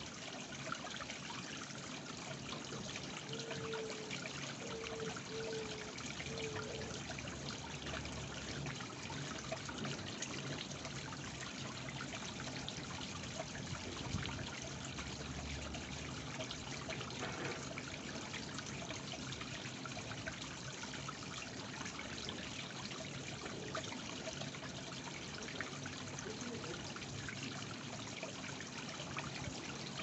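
Small garden waterfall trickling steadily down stacked stones into a koi pond.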